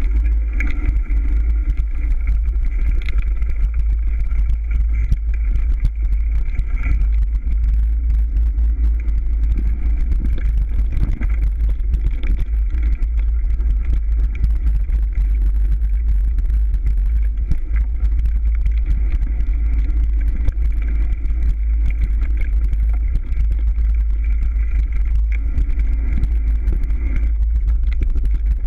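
Mountain bike riding over a dirt forest trail, heard from a bike-mounted camera: a constant heavy low rumble with frequent rattles and knocks from the bumps in the trail.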